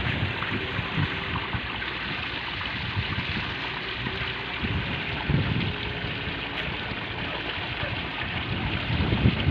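Water from the pool's return jets splashing steadily into the partly filled pool, a sign that the newly installed pool pump is running and pushing water back through the returns. Gusts of wind buffet the microphone.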